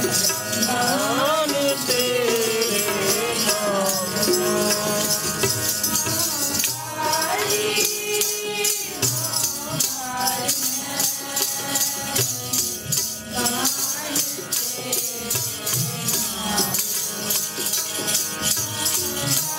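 Sikh kirtan: voices singing a devotional melody over a steady, rhythmic jingling percussion.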